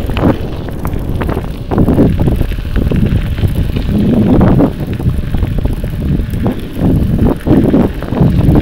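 Wind buffeting the microphone in irregular gusts, over the steady rolling noise of a bicycle ride.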